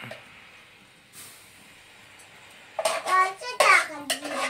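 A young child's voice in short vocal phrases from about three seconds in, after a couple of quiet seconds.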